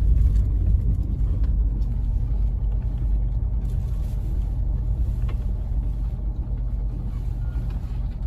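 Steady low rumble of a car driving on a rough dirt road, heard from inside the cabin: engine and tyre noise.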